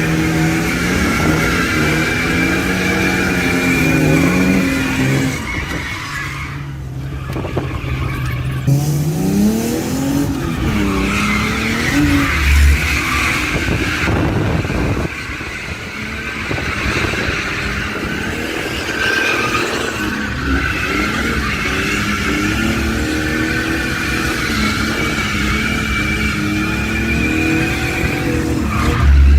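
Drift car engine revving up and down repeatedly while the tyres squeal in a long slide.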